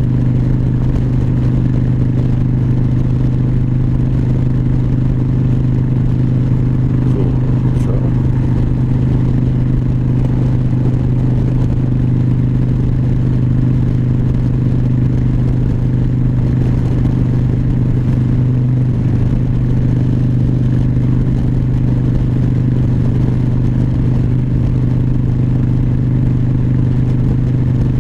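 2004 Harley-Davidson Dyna Wide Glide's air-cooled Twin Cam 88 V-twin running steadily at highway cruising speed, with wind rushing over the bike.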